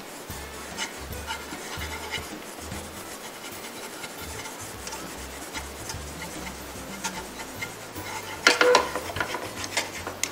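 Chopsticks stirring and scraping a thick sesame-paste sauce around a nonstick frying pan, with soft irregular scrapes that grow louder and quicker near the end.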